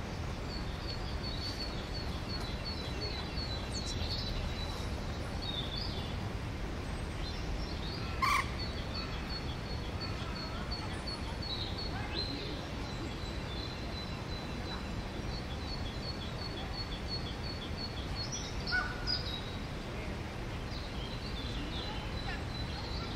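Outdoor garden ambience: a bird repeats a quick series of short, high chirps, about four a second, over a steady low background rumble. A single louder, harsher bird call comes about eight seconds in.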